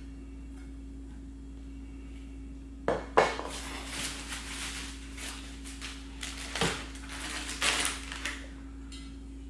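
Chrome exhaust pipes and heat shields clinking and knocking, with packing material rustling, as they are handled out of the shipping box. The handling starts about three seconds in as a run of irregular knocks and clatters, the sharpest near the start; before that only a steady low hum.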